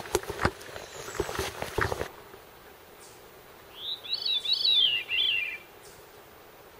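A songbird singing one short phrase of four or five quick rising-and-falling notes about four seconds in. Before it come a few sharp crunches or knocks.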